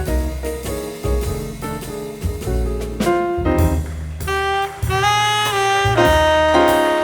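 Background jazz music with saxophone melody over bass and drums.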